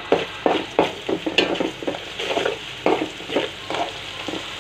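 Onion, green chillies and garlic paste sizzling in hot oil in a korai (wok), with a spatula stirring and scraping the pan in repeated strokes, about two or three a second.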